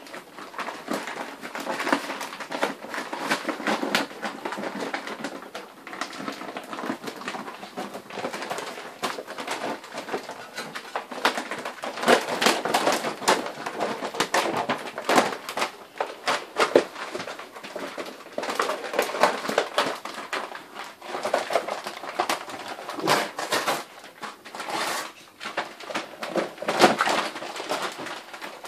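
Grand Basset Griffon Vendéen puppies tugging and chewing at an empty kibble bag, the bag rustling and crinkling in irregular bursts.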